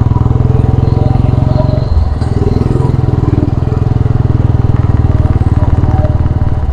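Royal Enfield Classic 350's single-cylinder engine and exhaust running steadily under way, with a brief drop in the engine note about two seconds in.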